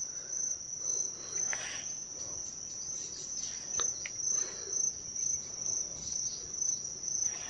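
Insect chorus: a steady, high-pitched shrilling held on one pitch, with a few faint clicks.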